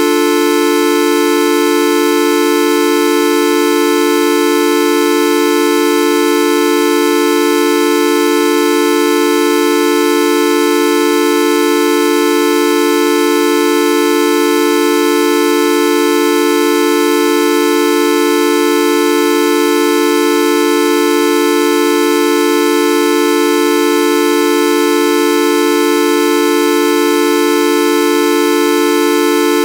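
The Videoup V1.2 sound effect: one loud, buzzy, horn-like electronic tone held at a single pitch without a break or change.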